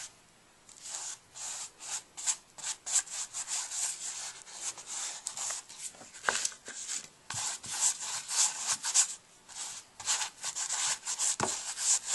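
Paintbrush bristles scrubbing and dabbing on a stretched canvas: quick scratchy strokes, a few a second, with a couple of sharper taps.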